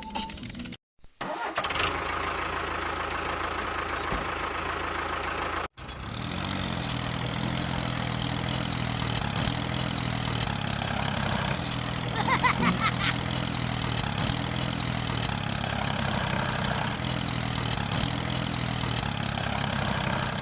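An engine idling steadily, in edited stretches: a short run, then after a brief cut about six seconds in, a longer steady run.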